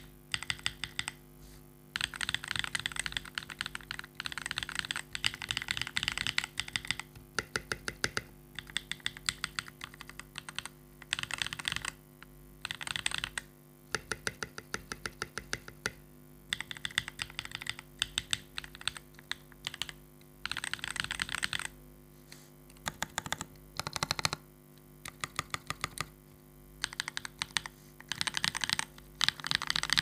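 Typing on an Armaggeddon MKA-61C mechanical keyboard fitted with lubed KTT Red Wine linear switches, tape-modded and dampened with neoprene, switch films and a PE switch pad. Keystrokes come in quick runs of a second or two with short pauses between, over a faint steady hum.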